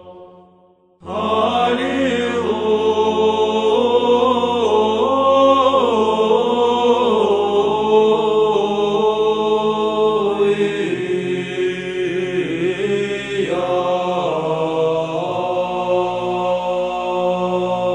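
Male monastic choir singing Russian Orthodox chant: a low note is held steady beneath a slowly moving melody line. The singing starts again after a brief pause about a second in.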